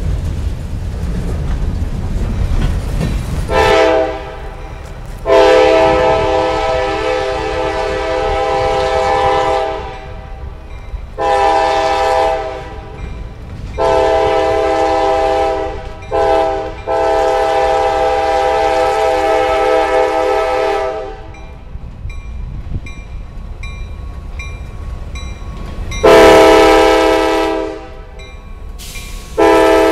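Air horn of an approaching CSX freight locomotive sounding several long blasts and one short one, over a steady low rumble of the train. A faint, evenly repeated ding from the crossing bell comes through in a gap between blasts.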